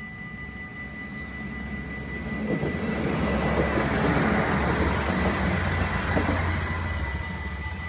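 LINT 41 diesel multiple unit passing over a level crossing: the engine rumble and wheel noise swell about two and a half seconds in, peak midway with a couple of wheel clacks, and die away near the end. Throughout, the crossing's warning bells ring with a steady high tone.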